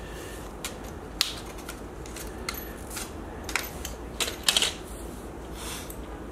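Metal tools and parts being handled: irregular small metallic clicks and clinks, about a dozen, the loudest few coming together about four and a half seconds in.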